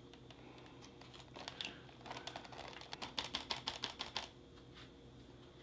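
Plastic spork stirring wet oat porridge inside a foil ration pouch: faint soft clicks and scrapes, several a second, starting about a second in and stopping about four seconds in.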